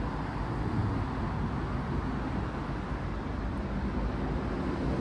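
Steady city street noise: a low rumble of traffic.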